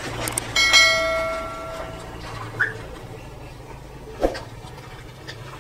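A single bell-like chime struck about three-quarters of a second in, ringing out and fading over about a second and a half, over a low steady rumble.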